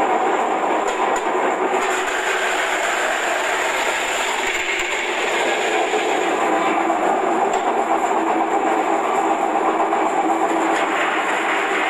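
Belt-driven electric vegetable shredding machine running steadily, its motor and spinning cutting disc making a continuous mechanical clatter.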